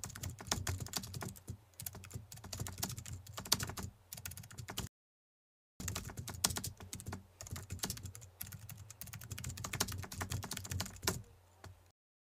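Computer keyboard typing sound effect: rapid, irregular key clicks. It stops dead for about a second around five seconds in, resumes, and cuts off suddenly just before the end.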